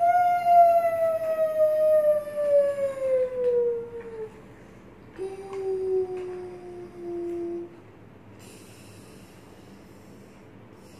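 A child humming two long, falling notes. The first is loud and slides steadily down over about four seconds. The second is shorter and lower, about five seconds in.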